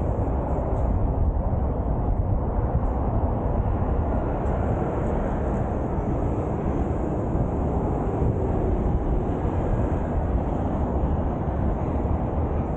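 Wind rushing over the microphone of a 360 camera riding on a moving bicycle, a steady low rumble.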